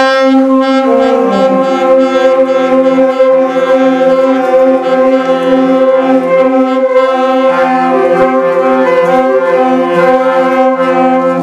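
A group of saxophones holding a long tone together, with more players coming in during the first second or so. This is the students' long-tone octave-key exercise, which tests whether the embouchure is too tight.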